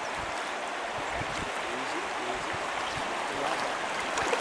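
Shallow river water rushing steadily over a rocky bed.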